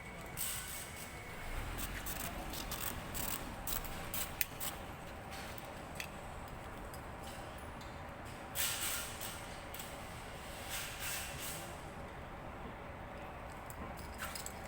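Overnight railway construction work: irregular clicks, scrapes and short bursts of hiss over a steady low hum, with the longest hiss a little past the middle.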